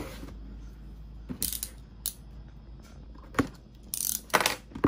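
Cardboard toy box being handled and opened on a table: scattered scrapes, rustles and clicks, busiest about four seconds in.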